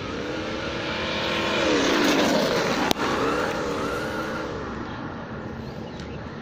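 Losi Baja Rey RC trophy truck running at speed past the microphone and away, its ESS One Plus sound module playing an engine sound that revs up and down with the throttle over the noise of tyres on gravel. It grows loudest about two to three seconds in, with one sharp click, then fades as the truck moves off.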